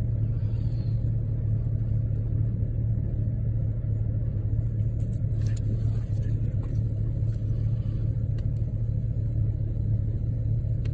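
A truck's engine idling, a steady low rumble heard from inside the cab.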